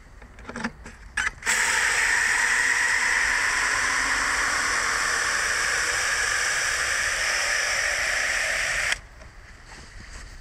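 A few clicks, then water from a garden hose spray nozzle jetting into an upturned plastic bottle sunk in the soil as a watering funnel: a steady rush of spraying water that cuts off suddenly near the end.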